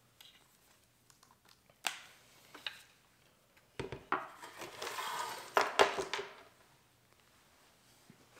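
Gear being handled on a wooden tabletop: a few separate knocks and clinks, then a couple of seconds of sliding and scraping as a leather belt with an aluminium pouch is dragged across the table, with the loudest knocks about six seconds in.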